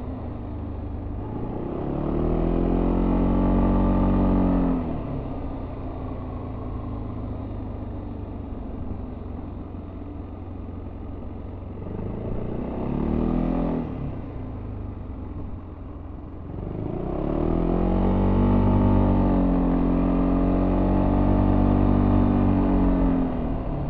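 Yamaha Tricity 300 scooter's single-cylinder engine through its stock exhaust, heard from on board while riding. Twice it rises and holds a steady, higher note under throttle for several seconds, with a short burst of throttle between. Between these it drops back to a lower drone as the throttle eases.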